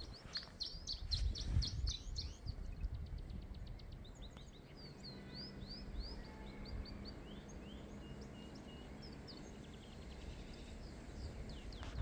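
Several wild songbirds singing at once, with quick high trills and short sweeping chirps, over a steady low rumble. A few footsteps on the path in the first two seconds.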